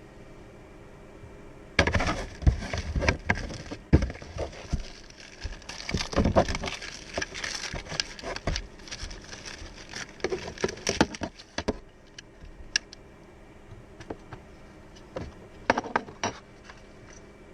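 Irregular knocking, clicking and rattling of things being handled, dense for about ten seconds, then a few scattered clicks near the end.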